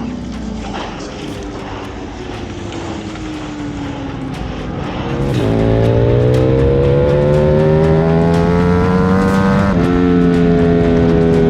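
Motorcycle engine under hard acceleration: after some wind rush, the engine pitch climbs steadily from about five seconds in. It drops sharply at an upshift near the end and starts climbing again.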